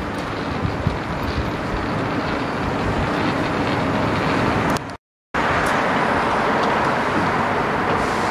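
South Western Railway electric multiple unit running away along the track below, a steady rumble and hiss. The sound cuts out completely for a moment about five seconds in, then a similar steady noise carries on.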